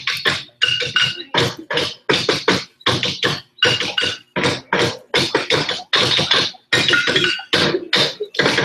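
Wheelbarrows played as percussion instruments: a quick, uneven rhythm of hits, about three a second, many of them leaving a short ringing tone.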